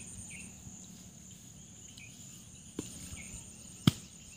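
Insects, likely crickets, trilling steadily in a high even pulse, with faint short chirps about once a second. Two sharp knocks come near the end, the second much louder.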